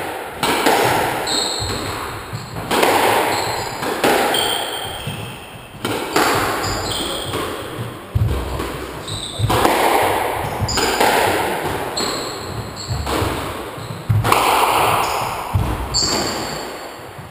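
Squash rally: the ball is struck by racquets and smacks off the court walls every second or two, each hit echoing in the hard-walled court. Short high squeaks of court shoes on the wooden floor come between the hits.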